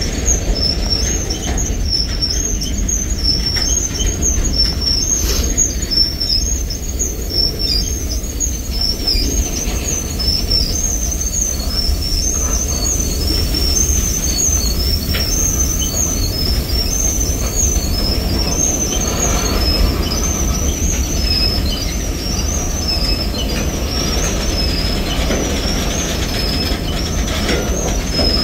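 Freight cars of a Norfolk Southern manifest train rolling past: a steady low rumble of wheels on rail, with a high-pitched squeal that repeats over and over.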